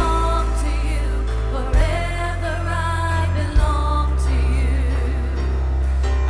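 Live worship band playing a slow song: sung melody over synth, piano, bass and drums. A deep bass note shifts about every two seconds, with a drum hit on each change.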